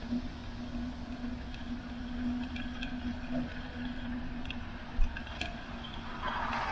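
Bicycle riding along a wet asphalt path: a steady hum and low wind rumble, with a sharp knock about five seconds in as the bike goes over a bump. Near the end the hiss of car tyres on the wet road swells.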